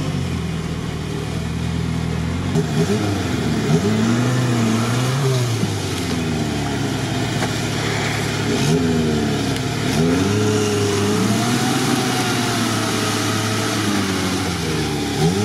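Suzuki Samurai 4x4's engine working in deep swamp mud: a steady engine note for the first couple of seconds, then revved again and again, the pitch rising and falling as the wheels churn.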